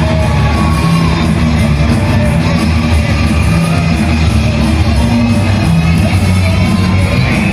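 Loud rock music with a heavy, steady bass and vocals.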